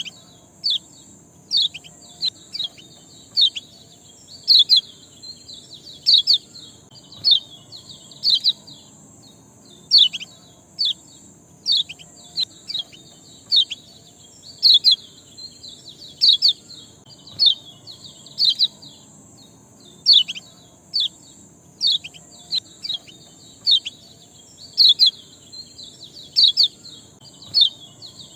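Ciak songbird calling: sharp, falling chirps repeated at irregular intervals, one or two a second, over a steady high hiss. A lure recording played to set a quiet caged bird singing.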